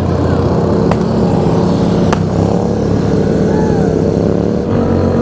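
Motorcycle engine running at a steady cruising speed while riding, its pitch held even, with two sharp faint pops about one and two seconds in.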